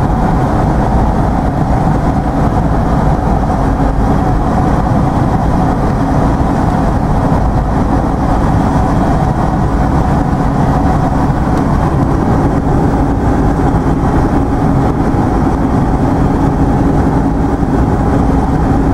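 Steady cabin noise of a moving vehicle at speed: engine drone and tyre roar on the road, with a low hum throughout.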